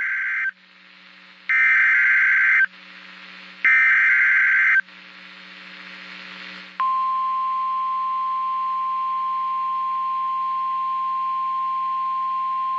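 NOAA Weather Radio Emergency Alert System activation for a special marine warning. It opens with SAME header data bursts: the tail of one and two more, each about a second of buzzing two-pitch data tone with short gaps of hiss between. About seven seconds in, the steady 1050 Hz weather radio warning alarm tone starts and holds.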